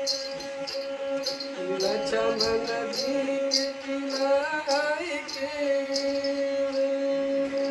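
Folk sarangi bowed with a steady drone and a light tick about twice a second. A man sings a wavering devotional phrase over it from about two to five seconds in.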